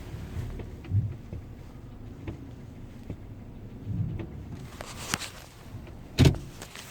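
2012 Hyundai Elantra heard from inside the cabin as it pulls away: low engine and road rumble with a few soft thumps, and a sharp knock about six seconds in.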